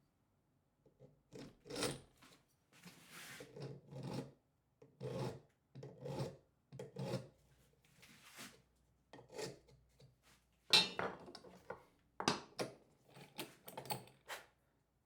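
A hand tool worked in short, irregular rasping strokes, about a dozen of them with pauses between.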